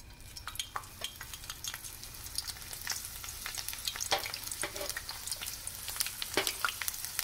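Sliced zucchini rounds frying in hot oil in a pan: a steady sizzle full of sharp crackling pops, growing louder as more slices are dropped in.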